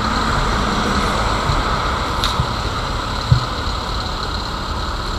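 Steady motor-vehicle-like running noise with a low rumble and hiss, with a short click about two seconds in and a low thump about a second later.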